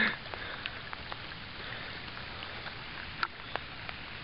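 Light water drips and small taps around a kayak over a steady hiss, with one sharper click a little over three seconds in.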